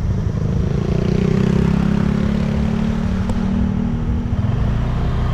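Scooter engine running while riding, with a heavy, steady low rumble.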